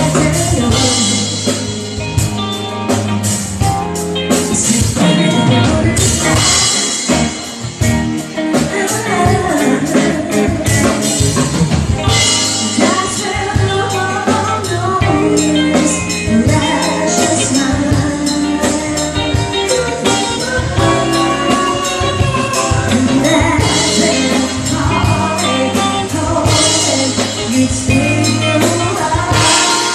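Live band playing a song, with a singer, drum kit and hand percussion such as tambourine.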